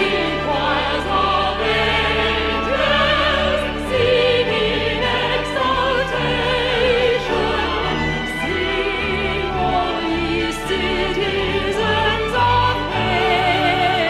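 Orchestral music with operatic singing, the voices held with a wide vibrato over sustained strings.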